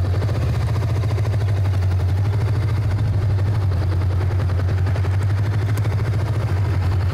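Motorcycle engine running at low speed with a steady, rapid, low throb.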